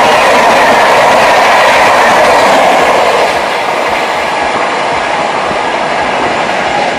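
Shatabdi Express passenger coaches rushing past at speed: a loud, steady rush of wheels on rails that eases slightly about three seconds in.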